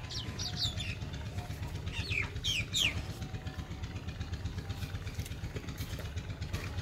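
Steady low engine-like hum, with a few short falling bird chirps about half a second in and again two to three seconds in.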